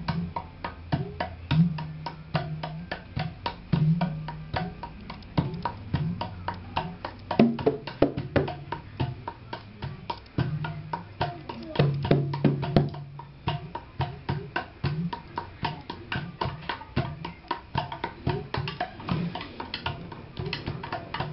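Sundanese celempung, a bamboo tube zither, played in a fast steady rhythm. Its strings give dense clicking strokes over low, drum-like booming tones.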